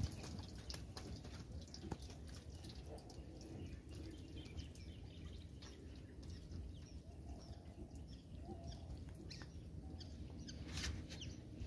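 Quiet clicks and rustles of a wet cast net being handled as a fish is freed from the mesh in a small boat, with one sharper knock near the end. Faint bird chirps come through behind it.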